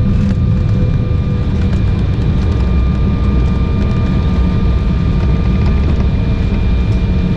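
Cabin noise inside an Embraer 195 airliner: a steady, heavy low rumble with a few thin, steady whine tones from its GE CF34 turbofan engines.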